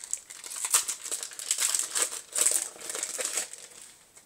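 Foil wrapper of a Yu-Gi-Oh! booster pack crinkling as it is torn open and handled by hand: irregular crackling that dies down near the end.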